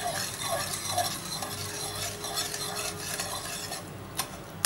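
Wire whisk stirring jaggery and sugar into water in a metal saucepan to dissolve them: a continuous swishing and scratching, with two sharp clicks against the pan near the end.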